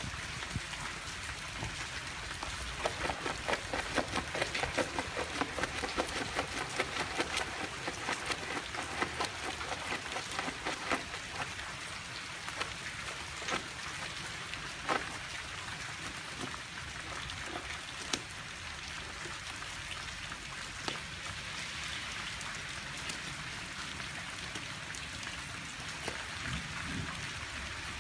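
Steady rain falling, an even hiss. From about three to eleven seconds in there is a run of quick crackling clicks, and a few sharper single clicks follow later.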